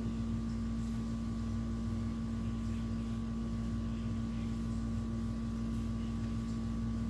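Steady mechanical room hum with a constant low tone, with faint rubbing of a whiteboard eraser across the board.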